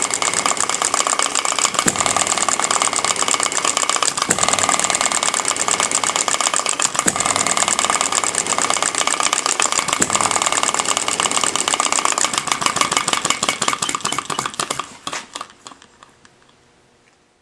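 Model Upshur hit-and-miss engine running with a fast mechanical clatter, its governor set with two heavy weights and a single strong spring. A louder firing stroke comes every two or three seconds. Near the end the clatter slows and fades away as the engine coasts to a stop.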